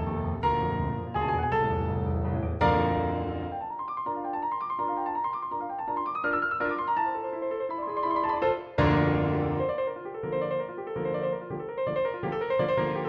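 Background piano music: struck chords over low bass notes, thinning to a lighter run of notes about four seconds in, with the bass coming back near nine seconds.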